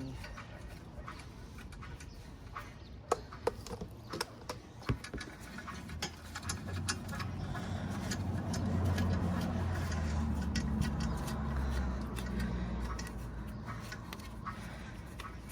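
A few sharp metal clicks and knocks from hand tools working a brake caliper bolt, then a low rumble in the background that swells over several seconds and fades again.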